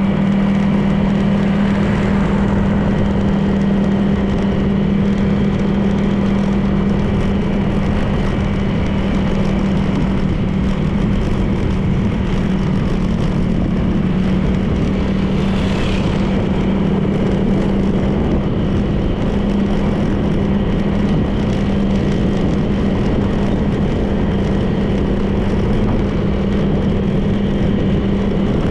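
Honda PCX 160 scooter's single-cylinder engine running at a steady cruise, its drone holding one even pitch over wind and road noise. A brief hiss passes about halfway through.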